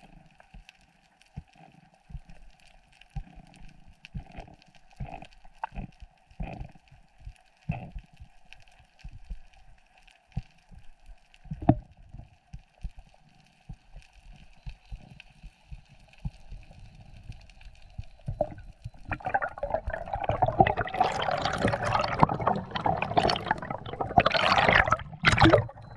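Water heard underwater: faint scattered clicks and knocks over a faint steady hum, then, about three-quarters of the way through, loud rushing and gurgling water that runs to the end.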